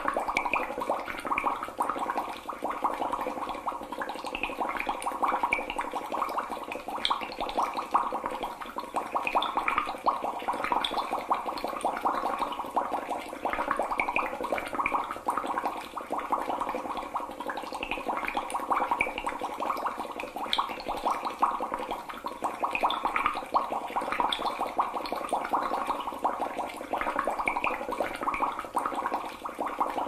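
Water bubbling in a dense, even stream of many small bubbles gurgling and popping.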